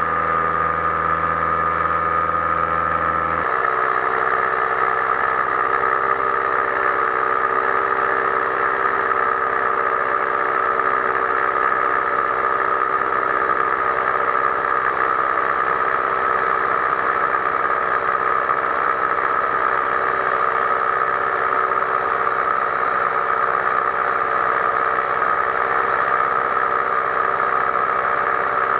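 Powered paraglider's engine and propeller running steadily in flight, a continuous drone. The engine note changes abruptly about three seconds in, then holds steady.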